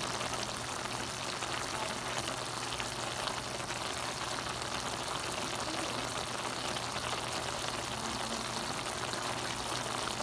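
Stir-fried cabbage and bell pepper sizzling and bubbling in their sauce in a pan: a steady sizzle with a fine, constant crackle.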